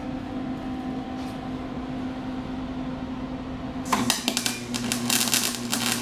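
A steady electrical hum, then from about four seconds in a MIG welder's arc crackling and sputtering in short welds on the sheet-steel inner fender, denser and longer near the end.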